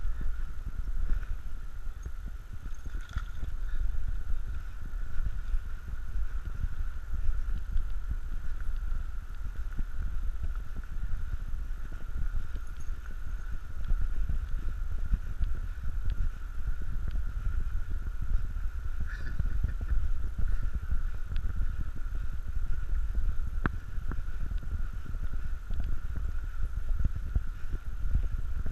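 Low, steady rumble of wind and handling noise on the microphone of a camera carried at a walk, with small irregular jolts. A faint steady high hum runs under it.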